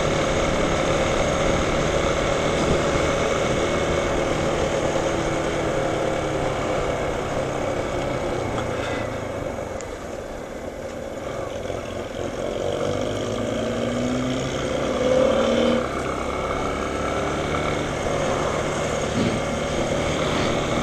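A motorcycle engine runs while riding, with wind and road noise over it. The engine dips around ten seconds in, then its note rises as it picks up speed a few seconds later.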